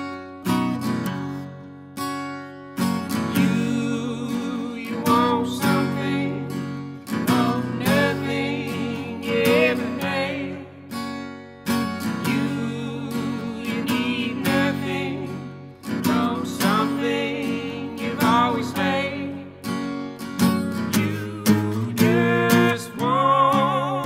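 Strummed acoustic guitar accompanying a woman and a man singing together, the voices coming in about three seconds in.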